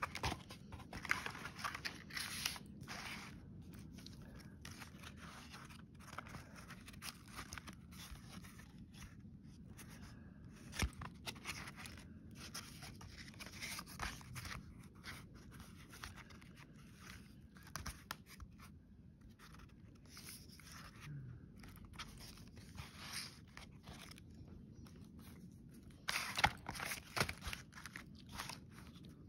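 Paper rustling as art cards and the pages of a handmade art book are handled and leafed through, in irregular bursts with a few sharp clicks.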